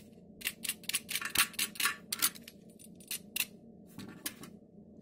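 A quick run of sharp metallic clicks and clinks, clustered through the first two seconds with a few more near the end, as a copper electrode clamp holding a twisted copper wire joint is handled.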